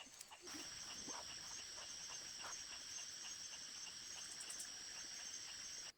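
Steady, shrill insect drone, a continuous high buzz typical of crickets or cicadas in forest. It starts about half a second in and cuts off abruptly near the end, with a few faint knocks underneath.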